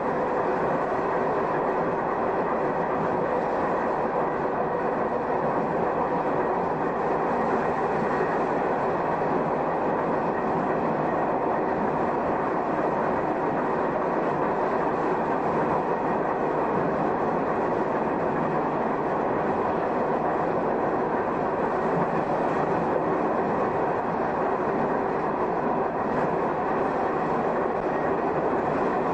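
Shin-Keisei car 252, an electric railcar with nose-suspended (tsurikake) traction motors, running steadily along the track: motor and gear noise mixed with wheels rolling on the rails, heard from inside the cab.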